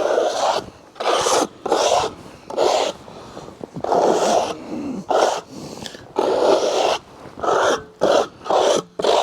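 Sawdust being brushed off the freshly milled face of an elm log: about a dozen brisk sweeping strokes, with a short pause a little past three seconds in and quicker strokes near the end.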